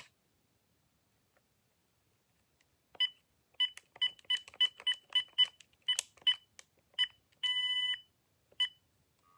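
Uniden EXP7900 cordless phone handset beeping as its keys are pressed while a memory location is programmed. After a few quiet seconds comes a quick run of short, identical key beeps with faint button clicks, then one longer beep and a last short one near the end.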